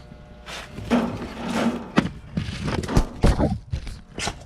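Cheap plastic garden hose being pulled and handled to work out its kinks and tangles: irregular knocks, clatters and scraping, with the sharpest knocks about two and three seconds in.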